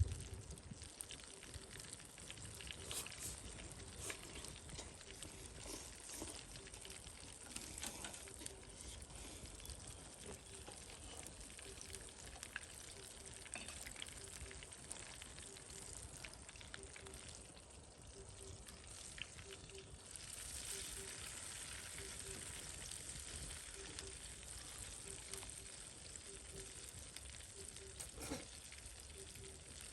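Karaage chicken pieces sizzling in hot frying oil over a campfire, with scattered pops and crackles. The sizzle grows louder about twenty seconds in.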